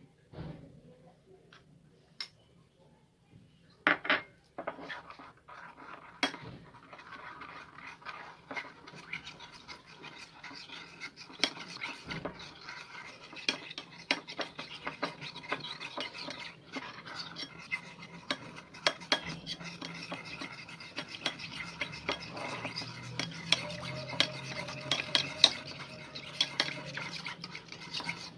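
A spoon stirring honey into strained red-onion juice, clinking and scraping against the sides of the dish in a quick, continuous rattle. It starts with a few separate knocks and turns into steady stirring about five seconds in. This is the mixing of honey and onion juice into a syrup for a cough remedy.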